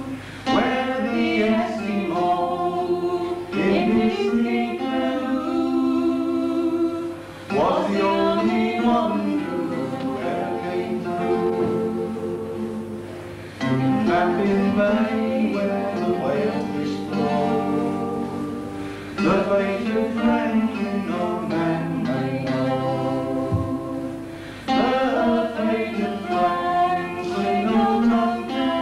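A man and a woman singing a folk ballad together in long sung lines, accompanied by an acoustic guitar.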